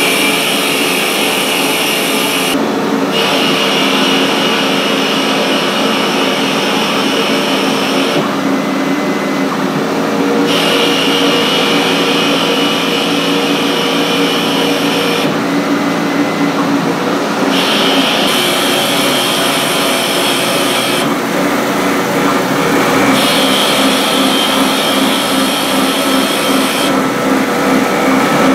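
Emcoturn 120 CNC lathe turning a metal part: the spindle motor runs steadily while a high hiss of cutting comes and goes with each roughing pass, about five passes with short pauses between them as the tool steps over.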